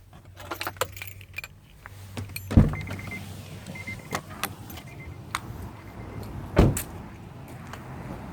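Handling a minivan: clicks and jingling keys, two heavy thumps about four seconds apart, and a high chime sounding on and off.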